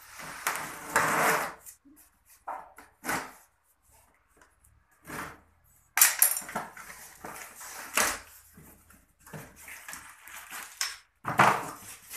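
Cardboard television box being cut and opened by hand: irregular rustling, scraping and knocking of cardboard and packing. The loudest bursts come about a second in and again around six and eight seconds in.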